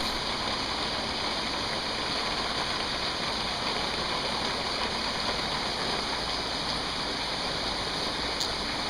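Torrential downpour: heavy rain pouring down in a steady, unbroken hiss.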